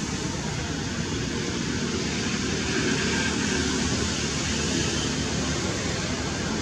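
Steady, even background hiss with no distinct calls or knocks.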